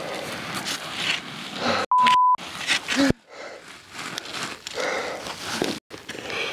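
Heavy breathing, footsteps on loose volcanic ground and clothing rustle of a hiker climbing a steep trail. The sound cuts out briefly a few times, and about two seconds in a loud, steady electronic beep sounds for under half a second.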